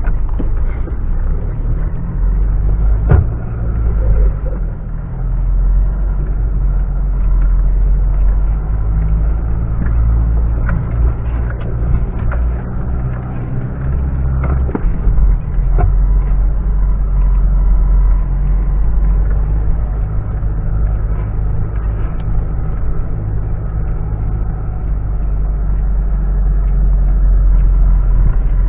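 Mitsubishi Pajero driving off-road, its engine running steadily throughout, with a scattering of sharp knocks and rattles over the rough ground.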